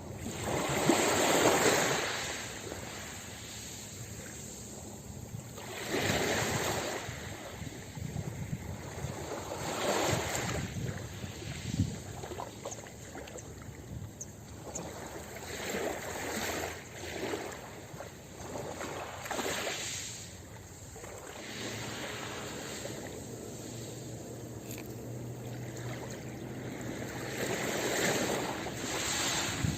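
Ocean waves breaking and washing up a beach, swelling and fading every few seconds, with the strongest surge about a second in and another near the end.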